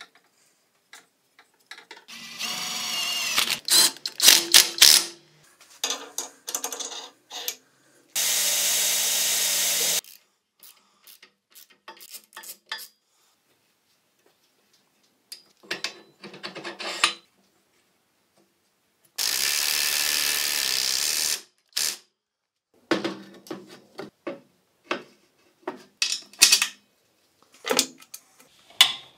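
Metalworking shop sounds: a power tool runs in two short bursts of about two seconds each. Between the bursts come scattered clicks, knocks and rattles of tools and steel parts being handled.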